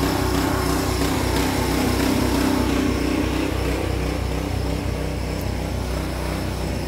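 A small engine running steadily, a constant drone that eases slightly after about three and a half seconds.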